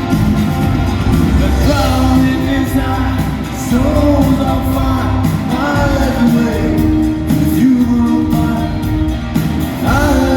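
Live rock band playing with a lead vocal: sung lines over sustained bass, keyboards and drums, a steady, full mix.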